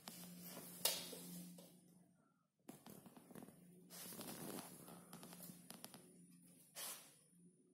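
Miniature pinscher pawing and nosing at a fleece blanket on a wooden floor: soft rustling and scuffing, with a sharp click about a second in, over a faint steady low hum.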